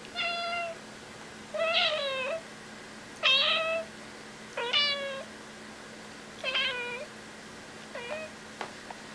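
A domestic cat meowing over and over, six meows spaced about a second and a half apart, the last one short.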